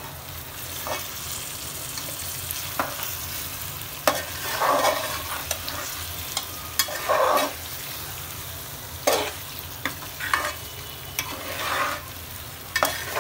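Mutton keema kebab pieces sizzling in oil in a metal pot, their water cooked off so they now fry, while a spatula scrapes the pot and tosses them through the browned onions in irregular strokes.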